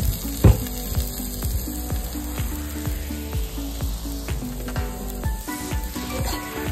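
Squid and broccoli sizzling as they stir-fry in oil in a non-stick pan, with a sharp knock about half a second in. Background music with a steady beat plays throughout.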